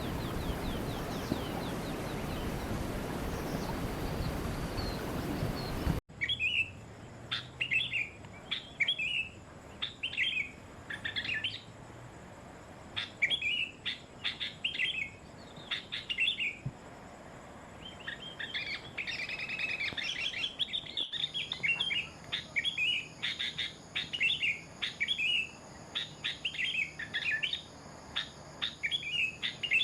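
A steady rushing noise for about six seconds, then a songbird singing a run of short, quick chirping phrases, repeated a few times a second with brief pauses.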